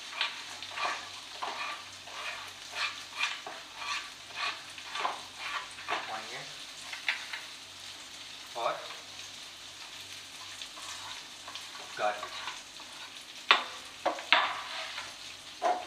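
Chopped onion frying in butter and ghee with cumin seeds in a pan, sizzling steadily, with irregular scrapes and knocks as it is pushed in and worked in the pan. Two sharper knocks come near the end.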